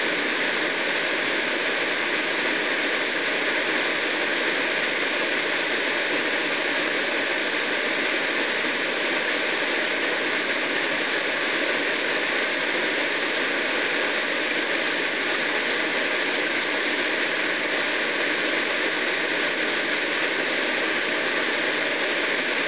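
A 10 m waterfall pouring steadily: an even, unbroken rush of falling water.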